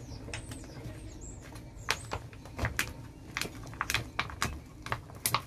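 A stir stick scraping and knocking against the sides of a clear plastic cup as it works a stiff epoxy paste thickened with colloidal silica. It makes irregular sharp clicks and scrapes, a couple or more each second.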